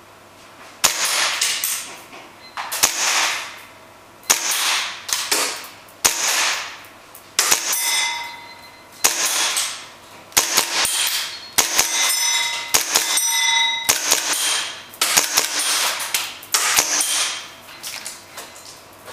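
Tokyo Marui Foliage Warrior gas-blowback airsoft pistol (an M1911 type) firing about twenty single shots at an uneven pace of roughly one a second. Each shot is a sharp crack with a hissing tail of about half a second. A few shots are followed by a brief ringing tone.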